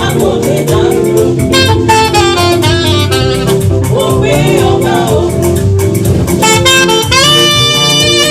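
Gospel band playing an instrumental passage: a saxophone-led melody with bright mallet-like keyboard notes over bass and steady drums, a long held note near the end.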